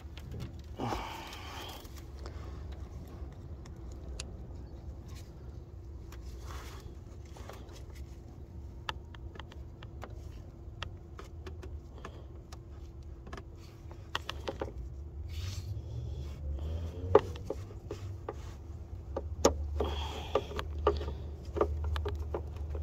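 Scattered small clicks and scrapes of a screwdriver prying stuck plastic electrical connectors loose, louder and more frequent in the second half, over a steady low hum.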